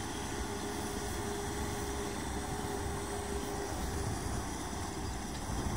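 Kubota M6040SU tractor's diesel engine running steadily while it works through the mud of a flooded rice paddy.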